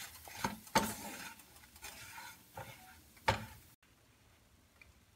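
Wooden spatula stirring and scraping semolina as it roasts in ghee in a kadai, a handful of sharp scrapes with a faint sizzle, stopping about three and a half seconds in.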